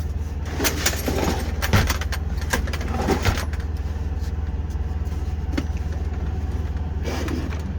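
Plastic case of a Craftsman 150-piece socket set being handled and opened, with several sharp clicks and knocks in the first few seconds and a few more later. A steady low hum runs underneath.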